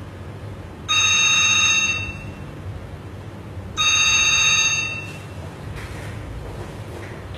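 Telephone ringing with an electronic trilling ring: two rings of a little over a second each, about three seconds apart.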